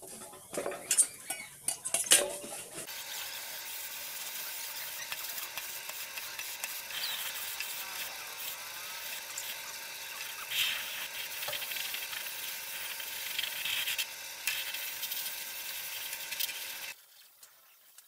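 Metal rice cooker body being handled: a few clinks and knocks, then a long steady hiss with scattered scrapes that cuts off suddenly near the end.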